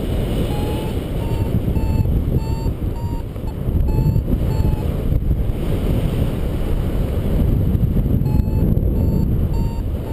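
Paragliding variometer beeping about twice a second in short high tones that creep slightly up in pitch, the signal that the glider is climbing in lift. The beeping stops for a few seconds midway, then resumes. Heavy wind noise on the microphone runs underneath.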